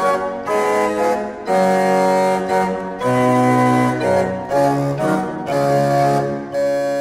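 The 1610 Compenius organ, with its all-wood pipes, playing Renaissance keyboard music: sustained chords over a moving bass line, the notes changing about once or twice a second.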